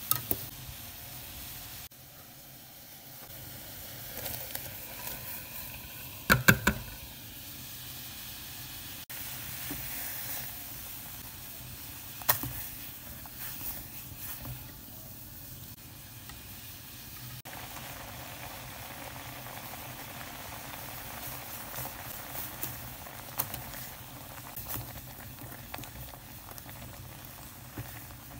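Corn kernels boiling in water in a metal pot: a steady bubbling hiss. A few sharp clicks of a spoon knocking against the pot come through it, the loudest a quick pair about six seconds in.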